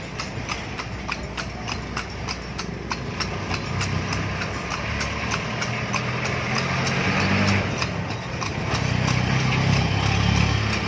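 A tartanilla horse's hooves clip-clopping on the asphalt street in a steady rhythm as it pulls the carriage. A low motor-vehicle engine hum joins in underneath from about four seconds in.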